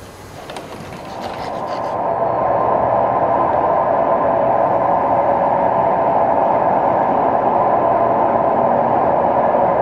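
Metro train running, a steady rushing noise that builds over the first two seconds and then holds level.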